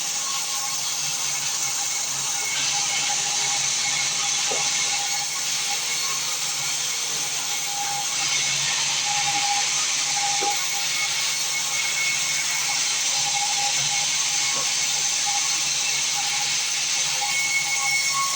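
Sawmill band saw running with a steady high hiss.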